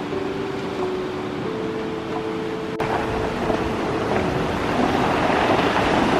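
Ocean surf washing and foaming over rocks in a narrow cove, with wind on the microphone. About three seconds in the sound changes suddenly and the surf grows louder. A few soft sustained music notes sound in the first half.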